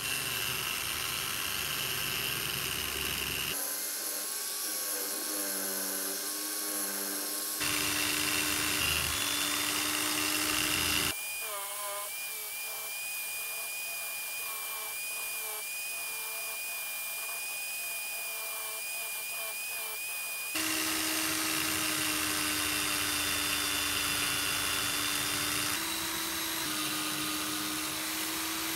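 A small high-speed rotary power tool running steadily, in several cut-together stretches, its pitch changing at each cut. This fits the metal polishing of a pair of calipers.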